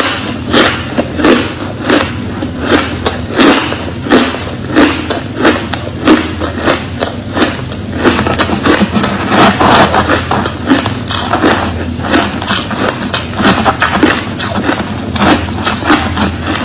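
Crushed ice being chewed and crunched, a steady run of crunches about one and a half a second, over a constant low hum.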